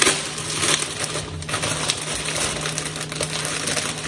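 Thin plastic bread bag crinkling and rustling as gloved hands open it and pull out the sliced sandwich bread, a dense run of small irregular crackles.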